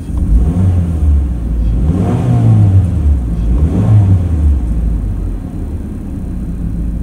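Car driving, its engine and road noise picked up by a dashcam inside the cabin, loud and steady, with the engine note rising and falling twice, about two and four seconds in.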